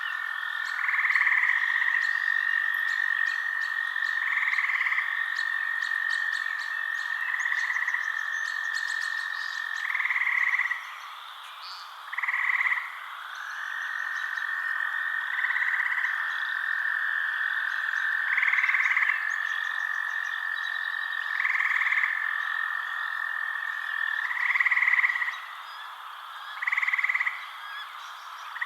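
Frogs calling at night. A long, steady trill holds on one pitch, breaking off briefly about halfway through, while a louder call repeats roughly every three seconds. Faint high ticking from insects runs underneath.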